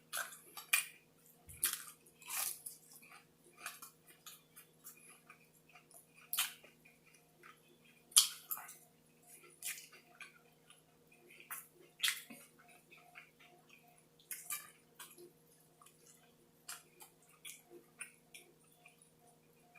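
A person chewing food close to the microphone: irregular wet mouth clicks and smacks, some sharper than others.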